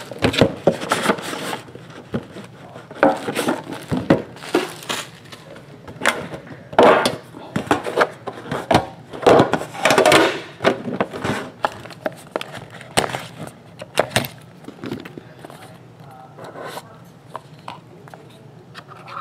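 Hands unwrapping and opening a sealed cardboard trading-card box: plastic wrap crinkling, cardboard scraping and knocking as the lid comes off and the cased cards are lifted out. The noises come in irregular bursts and grow sparser in the last few seconds.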